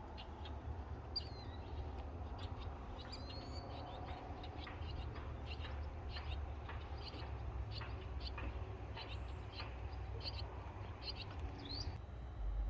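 Outdoor lakeside ambience: several birds give short chirps and calls, some rising or falling in pitch, repeating irregularly over a low steady rumble.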